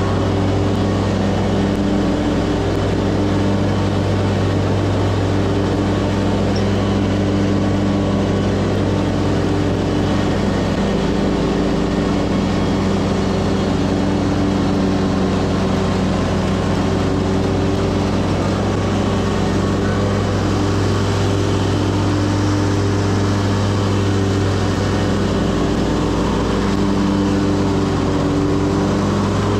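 Stand-on commercial lawn mower's engine running steadily at a constant pitch while the mower is driven.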